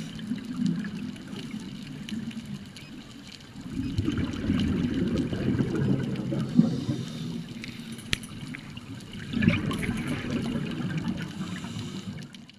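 Underwater bubbling and rushing, heard from inside a dive camera's housing: a scuba diver's exhaled regulator bubbles swell in surges every few seconds, with a few sharp clicks.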